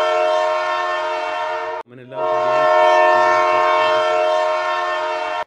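Train air horn sounding two long, steady blasts, each a chord of several tones. The first breaks off about two seconds in and the second follows a moment later.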